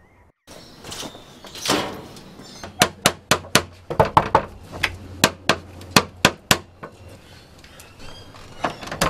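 A hand knocking hard and fast on a door: a run of about fifteen sharp knocks, roughly four a second, lasting some four seconds.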